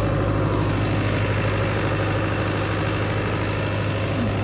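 Diesel engine of a New Holland farm tractor running steadily, without change in speed.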